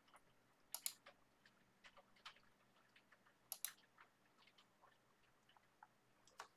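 Sparse, faint clicks of computer input over quiet room tone, with a sharper double click about a second in and another a little past the middle.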